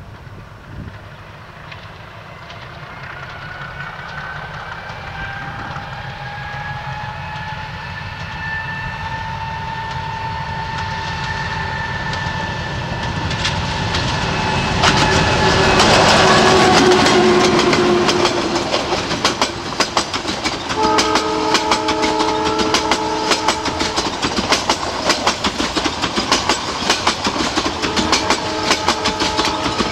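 ALCO YDM-4 metre-gauge diesel locomotive approaching with its dynamic brakes applied to slow the train. The brakes make a whine that holds steady pitches and grows louder until the locomotive passes, about halfway through. Passenger coaches then roll by with a fast clickety-clack of wheels over rail joints, and a steady sound of several tones at once comes in twice.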